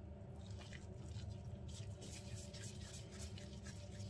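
Gloved hands working spiced minced veal into kefta balls: soft, irregular squishing of the meat and rustling of the disposable gloves, faint over a low steady hum.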